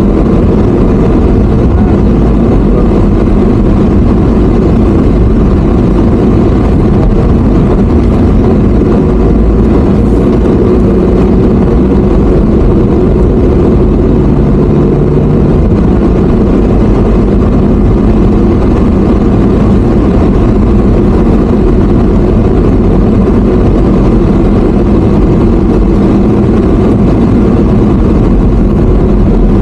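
Steady engine and road noise of a moving vehicle, a loud continuous rumble with no change in pace.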